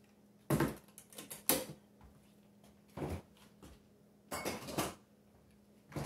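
Glass and metal kitchenware clinking and clattering in about five short bursts: a glass coffee jar, cups and a metal portafilter being handled and set down while espresso grounds are loaded.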